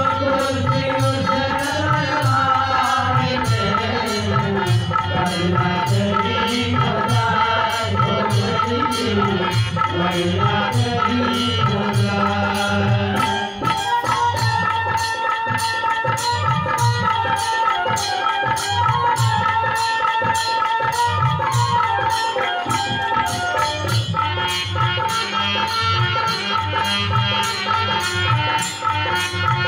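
Devotional folk music with no words: a harmonium plays the melody over a steady, even beat on hand drums.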